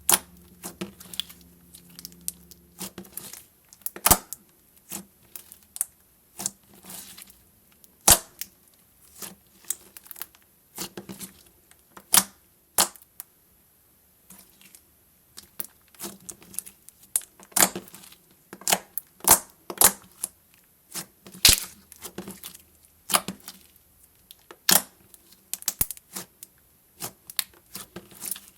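Slime being squished and poked by hand, giving irregular sharp pops and clicks, several a second.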